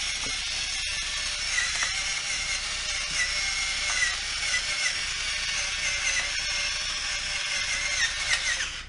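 Battery-powered electric pepper mill grinding black peppercorns: a steady motor whir with a high whine and gritty crunching. It stops abruptly near the end.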